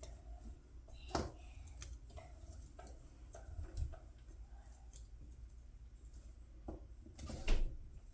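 Small metal clicks and taps of pliers working at a half-inch Craftsman ratchet head while it is being taken apart. A sharp click comes about a second in, and a louder cluster of clicks near the end.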